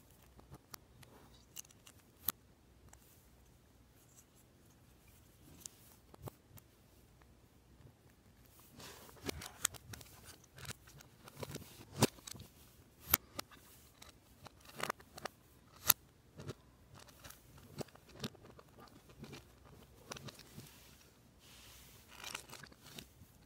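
Plastic Lego Technic pieces being handled and pressed together: scattered sharp clicks and snaps, getting busier with quick rattling clicks in the middle and a few louder snaps.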